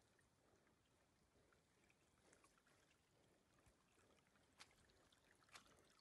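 Near silence: faint background hiss, with two soft clicks near the end.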